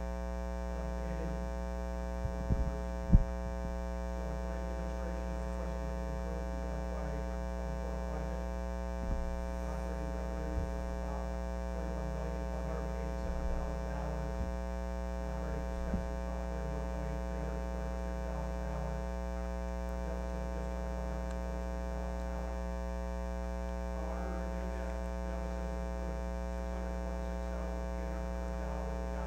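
Steady electrical mains hum with a buzzy stack of overtones on the sound system, loud enough to bury a faint, distant voice beneath it. A few clicks and bumps break through, the sharpest about three seconds in.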